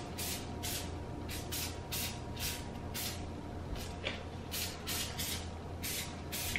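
Aerosol avocado oil cooking spray given a rapid string of short squirts, about two or three short hisses a second.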